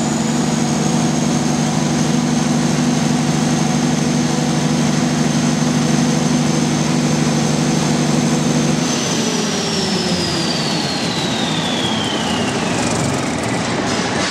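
Diesel standby generator running at a steady speed. About nine seconds in its low engine note drops away, and a high whine falls steadily in pitch as the set winds down.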